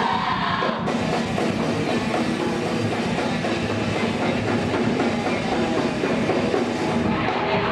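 Rock band playing at full volume, drum kit and guitar.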